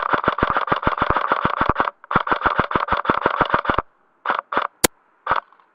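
Airsoft electric gun, the G&G MP5 SD6 with a MOSFET, firing full auto at about ten shots a second: two long bursts, then four single shots with a sharp click among them.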